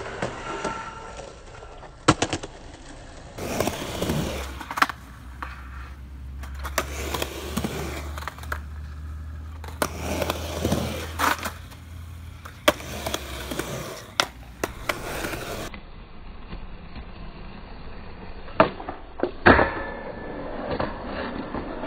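Skateboard sounds: sharp clacks of the board popping and landing on concrete and a metal flat rail, with a steady low rumble of wheels rolling on concrete through the middle stretch.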